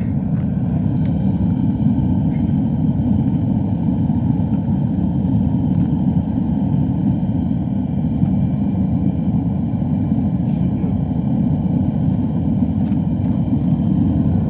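Gas forge burner running, a steady low rushing noise of gas and flame.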